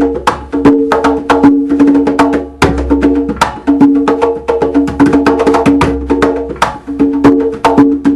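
Solo live percussion music: rapid, rhythmic hand-played strikes, about five or six a second, over two steady held notes that break off and return in phrases.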